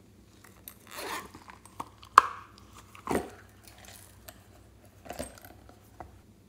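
Hands handling a zippered silicone pencil case over a glass dish of slime: three brief rustling scrapes and one sharp click about two seconds in, the loudest sound, as small star-shaped glitter is shaken out onto the slime.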